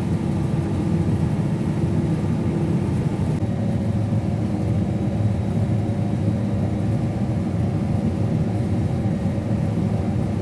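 Combine harvester running steadily while cutting soybeans: a dense, even mechanical drone whose tone shifts slightly about three seconds in.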